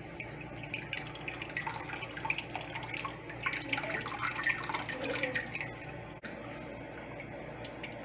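Boiled sea moss liquid dripping and trickling through a fine mesh strainer into a steel pot as the strainer is moved about to press out the last of the liquid. The drips are busiest in the first six seconds and sparser after that.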